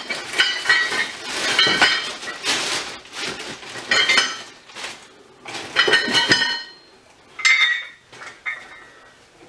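Metal parts of a hydraulic strut spring compressor kit clinking and rattling against each other as they are handled in a cardboard box, in several clusters of ringing clinks that thin out near the end.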